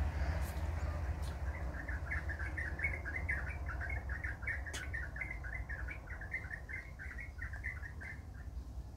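A small bird chirping in a fast, even run of short high notes, several a second, that starts a second or two in and stops shortly before the end, over a low steady background rumble.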